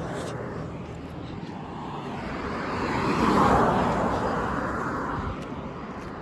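A car driving past: engine and tyre noise swell to a peak about three and a half seconds in, then fade as it moves away.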